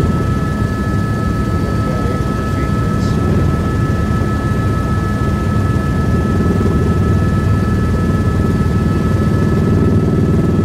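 News helicopter in flight, heard from inside the cabin: a loud, steady engine and rotor drone with two constant high whining tones above it.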